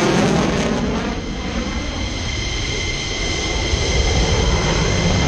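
Jet aircraft flying past. Its roar sweeps through in the first second and goes on as a steady rumble with a high whine.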